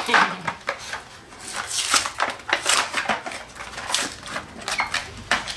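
Small printed cardboard toy packaging being handled and pulled open by hand: irregular crackling, rustling and sharp clicks.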